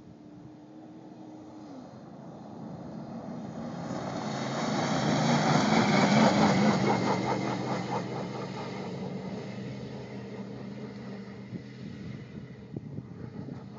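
A lifted pickup truck driving past at speed across sand. Its engine and tyre noise grows louder, peaks about six seconds in as it passes, then fades away.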